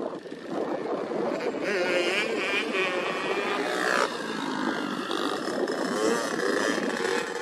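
Motocross bike engines revving, their pitch wavering up and down as the throttle opens and closes, with more than one engine note overlapping and one sharp rise about four seconds in.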